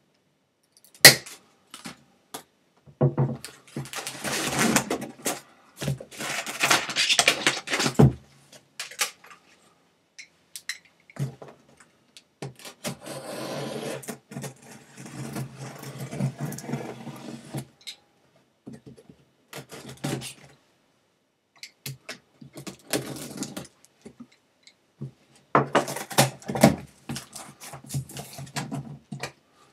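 A cardboard box being opened by hand: a sharp snap about a second in as the plastic strapping band is cut, then scraping and rustling of cardboard, a longer stretch of a blade slitting the packing tape along the top, and the flaps being pulled open near the end.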